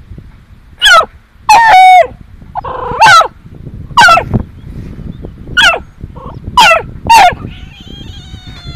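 Bullfrog giving distress screams while a puppy harasses it: about seven loud, short cries, each falling in pitch, about a second apart. Near the end a quieter, drawn-out tone begins.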